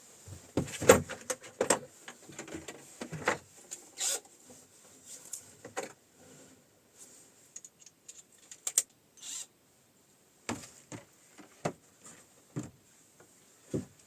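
Irregular knocks, scrapes and rustles of things being handled, busy for the first few seconds, then sparser, with a run of about five separate knocks near the end.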